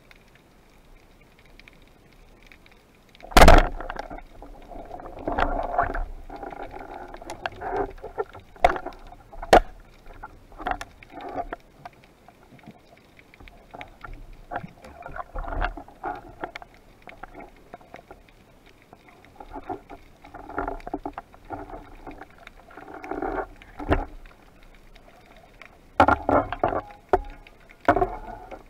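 A speargun firing underwater: one sharp, loud crack about three seconds in. It is followed by irregular clicks, knocks and muffled water noise as the shaft, line and speared fish are handled.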